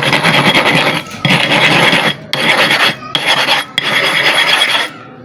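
A super-hard sharpening stone ground back and forth by hand in about five harsh rasping strokes with short breaks between them. The stone's dished face is being flattened toward its centre.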